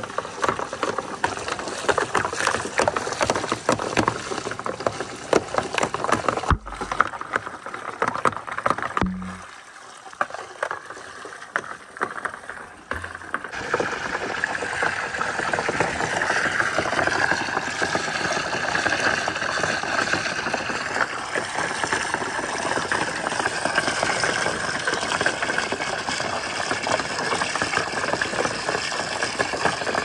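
Marbles and wooden balls clattering and clicking in quick succession as they roll down a water-filled marble run, with water rushing through the tracks. After two abrupt breaks the rapid clicking thins out and a steady rush of flowing water takes over.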